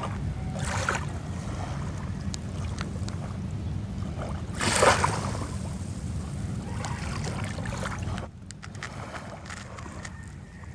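Sea waves washing on the shore over a steady low rumble, with one louder wash about five seconds in. The sound drops quieter after about eight seconds.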